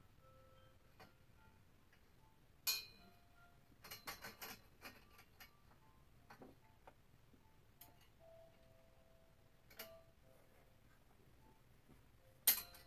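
Metal clinks and clicks from the steel tubing and fitting of a clothes rack being worked by hand: a sharp clink about three seconds in, a quick run of clicks around four to five seconds, and another sharp clink near the end.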